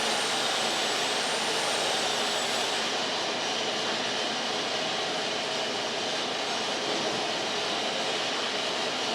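Band sawmill running steadily, a dense even machine noise. A faint high whine at the start fades out about three seconds in.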